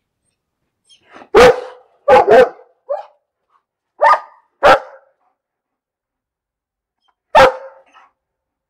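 A dog barking: one bark, a quick double bark followed by a softer one, two more barks about half a second apart, then one last bark after a pause of nearly three seconds.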